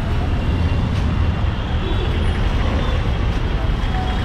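Slow, dense street traffic: the engines of auto-rickshaws, motorbikes and small trucks running together as a steady low rumble.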